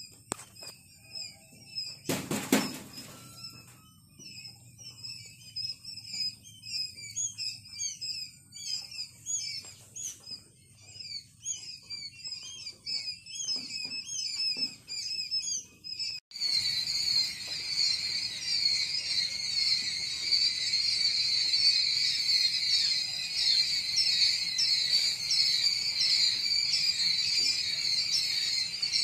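Newly hatched quail chicks peeping: scattered short, high peeps a few per second, with a single knock about two seconds in. After an abrupt cut about sixteen seconds in, the peeping becomes denser and louder, many overlapping peeps.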